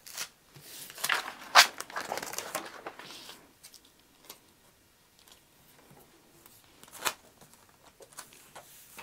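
Sheets of printer paper rustling and sliding as they are lifted, shuffled and pressed flat by hand. The handling is busiest in the first few seconds, then there are a few sharp crackles, the loudest about seven seconds in.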